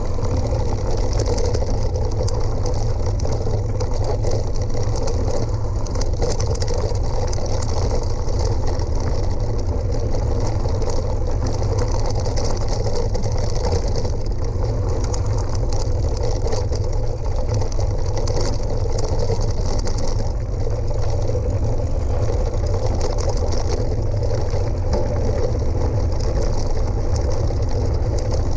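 Steady, continuous rumble of travel at about 20–30 km/h down a rocky gravel track, heavy in the low end with a high hiss over it.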